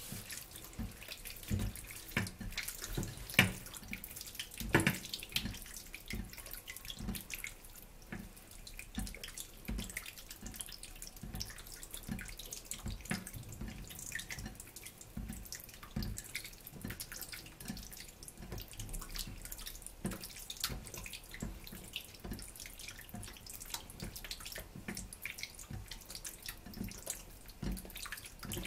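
A hand squeezing and turning pieces of raw pork in a ceramic bowl of wet marinade: irregular wet squelching and smacking, with a few louder smacks a few seconds in.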